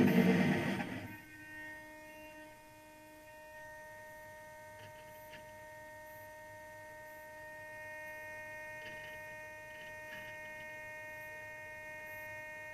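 Steady electronic whine of several high tones held level, picked up by the camera riding on the radio-controlled model sailboat. A loud, brief rush of noise fills the first second.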